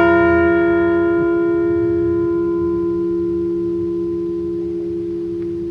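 Liberty Bell replica ringing on after being struck once, tolling for one name. Its higher overtones die out within two or three seconds while the low hum lingers and slowly fades.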